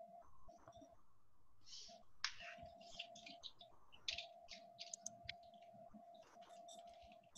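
Faint, irregular clicking of computer keyboard typing, over a steady faint tone.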